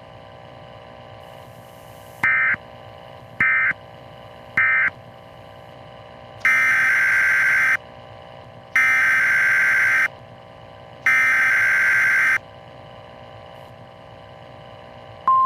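NOAA Weather Radio EAS/SAME digital data bursts over a steady radio hiss. First come three short buzzing bursts about a second apart, the end-of-message code that closes the previous broadcast. Then come three longer bursts of about a second each, the coded header that announces the next alert.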